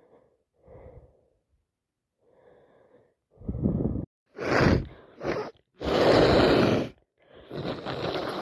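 Congested nasal breathing from a woman with a heavy cold and sinusitis: a few soft breaths, then from about three seconds in a run of loud, harsh sniffs through a blocked nose, the longest lasting about a second.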